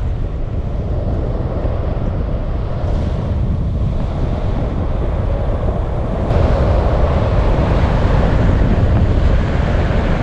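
Wind rushing over the microphone at speed, with longboard wheels rolling on asphalt during a fast downhill run. The noise is steady and gets louder about six seconds in.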